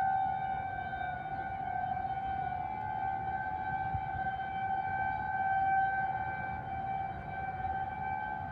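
Outdoor warning sirens, with a Modulator siren heard in the distance, sounding one steady tone that slowly swells and fades.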